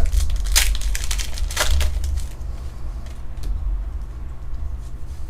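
Pokémon trading cards and booster-pack foil being handled: two brief rustling, crinkling bursts in the first two seconds, then fainter rustles over a steady low hum.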